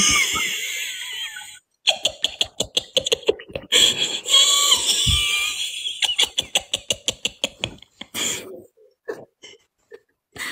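People laughing hard on a video call: shrieking, high-pitched laughter in quick rapid pulses that fades away over the last couple of seconds.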